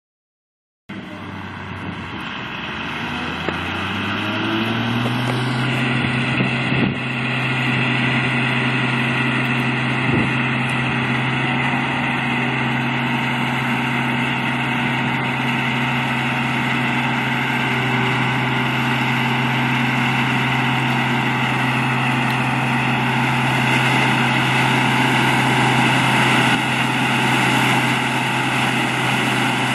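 Engine of heavy farm machinery coming in about a second in, its pitch climbing for a few seconds as it speeds up, then running steadily at speed.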